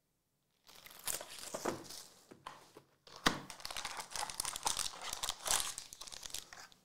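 Crinkling and crackling of card packaging being handled: plastic wrap and a foil trading-card pack rustling as the pack is pulled out of its box. It comes in two spells, with a brief pause and a sharp crackle about three seconds in.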